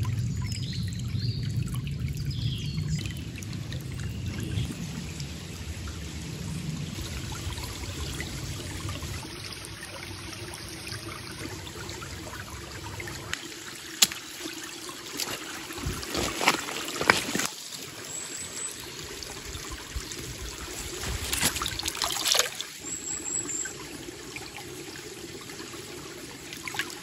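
Shallow stream trickling and running over stones, steadily, with a few sharp knocks about halfway through and again a little later.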